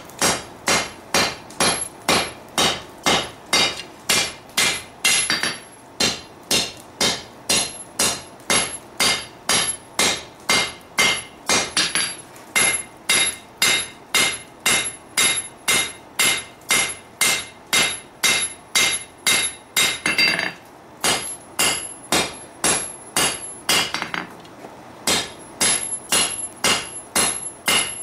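Hand hammer striking a red-hot steel sword blade on an anvil in a steady rhythm of about two blows a second, each blow with a short metallic ring. There are a few brief pauses between runs of blows. This is the blade being forged and thinned out under the hammer.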